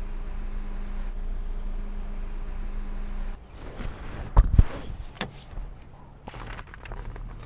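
A steady machine hum that cuts off abruptly about three seconds in. Then come rustling and handling noises, two loud thumps a little after four seconds, and a few scattered clicks.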